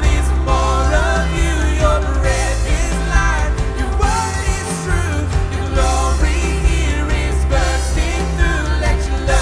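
Worship band playing a song live, with singers' voices over drums, bass guitar and keyboards, at a steady loud level.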